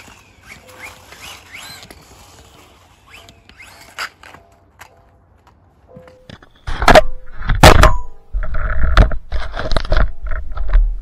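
Brushless RC truck driving, heard through an action camera mounted on its chassis: faint at first, then from about two-thirds in, loud bursts of rumbling, rattling drivetrain and tyre noise as it speeds up and slows.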